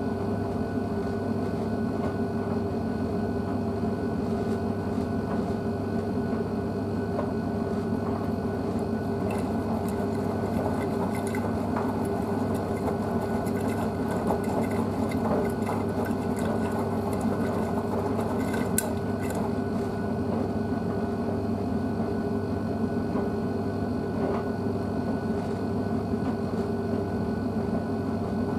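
Blomberg WNF9448 front-loading washing machine tumbling a wet load during its wash: the drum motor hums steadily as the drum turns. Scattered light clicks come in the middle.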